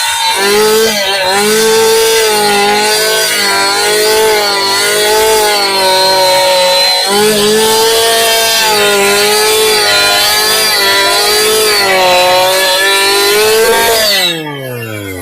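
Chainsaw running at high revs and cutting timber, its pitch wavering as the load changes, with brief dips twice. Near the end the throttle is let off and the engine winds down in a falling pitch.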